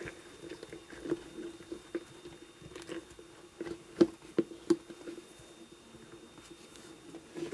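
Hands handling a vinyl doll arm and torso while fitting the arm into the body, giving soft rubbing and small clicks and knocks, a few sharper ones about four seconds in. A steady low hum runs underneath.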